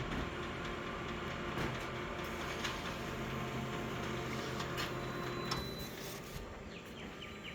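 A small machine running with a steady hum and scattered light clicks, easing off about six seconds in.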